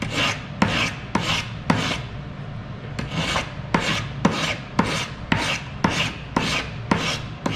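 Hand file scraping across metal in quick back-and-forth strokes, about three a second, with a short pause about two seconds in: filing away the last ridge of excess solder on a soldered seam.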